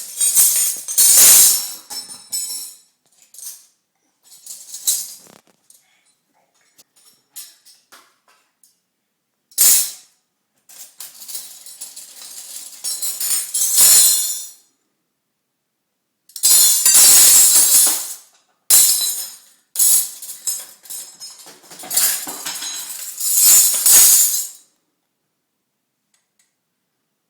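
A child's pile of metal spoons jangling and clattering together in repeated bursts of a second to a few seconds, with short pauses between.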